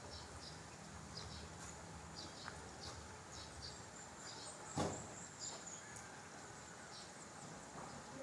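Faint outdoor ambience of small birds chirping in short, irregular high notes over a thin steady high tone. A single sharp knock a little under five seconds in is the loudest sound.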